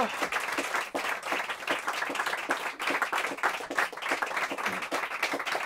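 Audience applauding with steady, continuous hand clapping.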